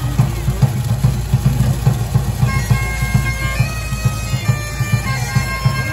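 Bagpipe music playing loudly over a dense, pulsing low rumble, with held melody notes that step from pitch to pitch coming in about halfway through.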